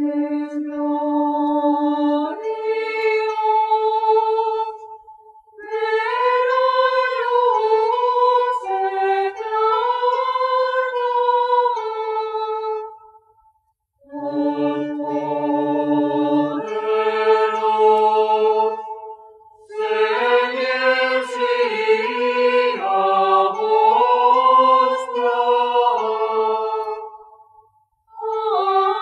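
Slow background music of long held melodic notes in phrases a few seconds long, with brief pauses between phrases.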